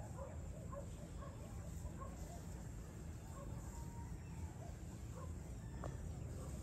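Outdoor evening ambience: many short, repeated calls from distant animals, scattered irregularly, over a low steady rumble, with one brief click about six seconds in.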